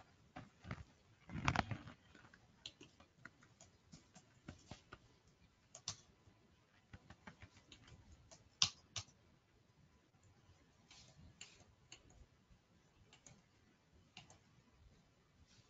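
Faint computer mouse clicks and keyboard keystrokes, sharp and irregular, with a louder cluster of them about a second and a half in.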